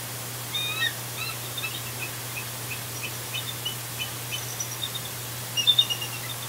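A pair of bald eagles calling at the nest: a run of high, thin chittering notes a few per second, with a louder burst about half a second in and the loudest burst near the end, given with heads thrown back.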